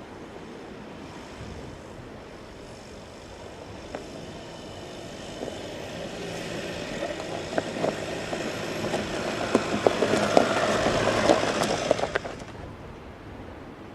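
Skoda Octavia Scout driving toward and past, growing louder, with tyres crunching and popping over loose stones. The sound cuts off suddenly about twelve seconds in.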